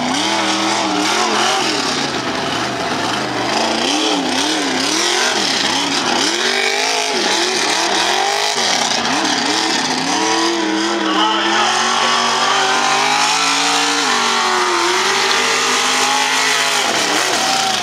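Mega truck engine revving hard and unevenly, its pitch swinging up and down again and again, then held higher and climbing over the last few seconds, over a loud steady rushing noise.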